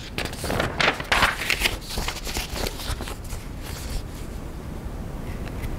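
Irregular rustling and shuffling handling noise, busiest over the first four seconds, settling into a steady hiss.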